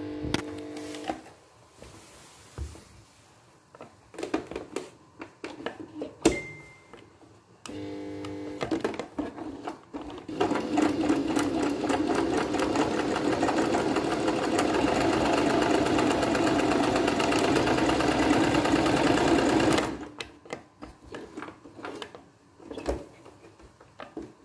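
Brother PX-110 electric sewing machine stitching through fabric. It makes short brief runs near the start and about eight seconds in, then sews steadily at speed with a fast, even stitching rhythm for about ten seconds before stopping suddenly. A few light handling clicks come in the quieter gaps.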